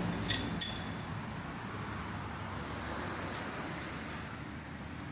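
Two quick metal clinks about half a second in, then a steady low background noise.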